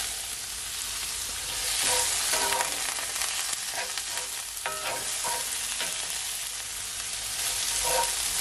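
Onions, sweet peppers and tomato sizzling in oil in a pan while a wooden spoon stirs them, with a series of short knocks and scrapes of the spoon against the pan.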